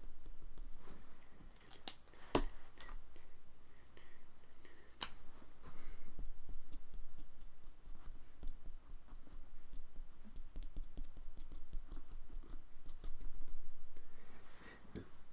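Ink pen scratching and dabbing on drawing paper to work texture into the drawing, with a few sharp clicks in the first five seconds.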